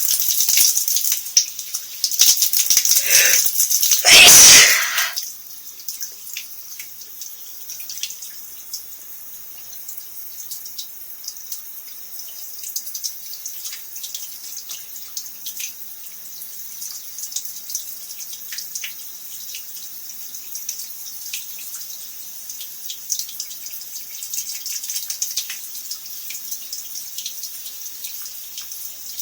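Shower spray running, with a steady hiss and scattered drips and splashes. It is louder over the first few seconds, and one loud sneeze comes about four seconds in.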